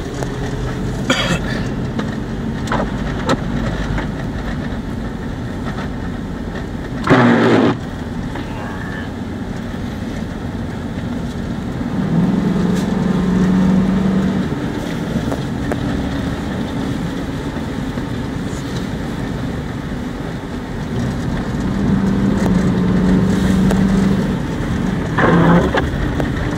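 A 4x4 driving through deep snow, its engine and tyres giving a steady rumble, heard from inside the cabin. A steadier hum comes up twice for a couple of seconds, and a brief loud burst of noise breaks in about a third of the way through and again near the end.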